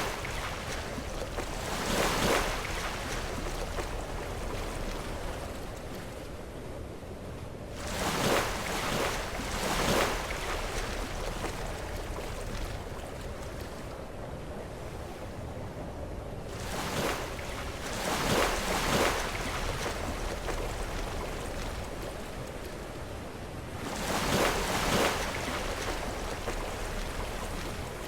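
Sea waves breaking against rocks, four surges several seconds apart, each swelling and falling away over a couple of seconds, over a steady wash of surf.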